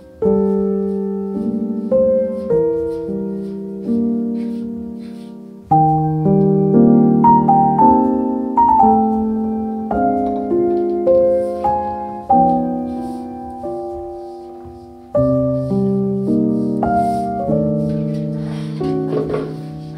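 Background piano music: slow, gentle chords and melody notes, each struck and left to fade.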